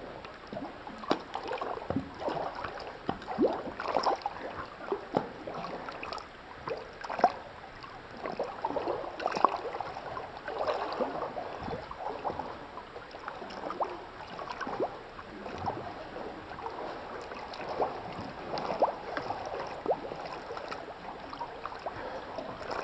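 Water splashing and sloshing from swimming strokes close to the microphone, in uneven splashes about once or twice a second.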